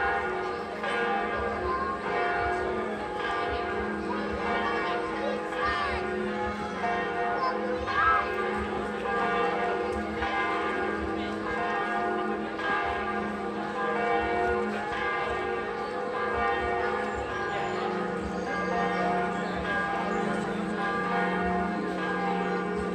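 Church bells pealing: several bells ringing together without a break, their overlapping tones lingering and blending.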